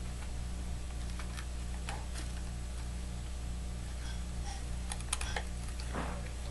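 Scattered light clicks and taps as taped mirror strips are handled and pressed into line, over a steady low hum.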